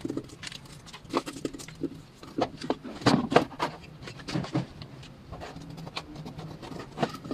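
Hand-tool work on a car's alternator mounting in the engine bay: irregular metallic clicks and knocks, the loudest cluster about three seconds in.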